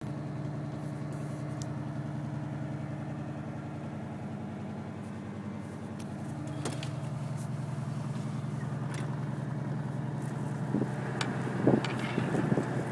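Motor vehicle engine idling steadily, with a few knocks and rustles near the end.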